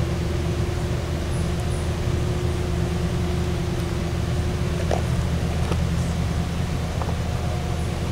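Steady low vehicle rumble with a constant droning hum and a few light clicks.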